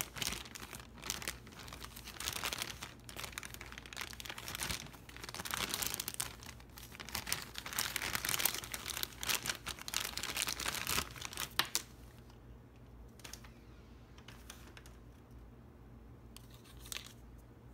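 Thin clear plastic toy bag crinkling and being torn open as a small plastic figure is pulled out, for about twelve seconds; then quieter, with a few short rustles and light clicks of the bag and toy being handled.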